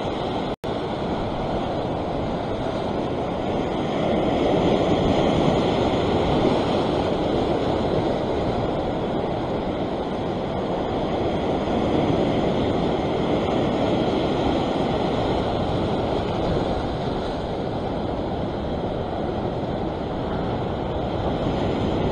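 Sea surf washing and breaking over a rock ledge, a continuous rushing wash that swells louder with the bigger waves a few seconds in and again midway, with wind buffeting the microphone.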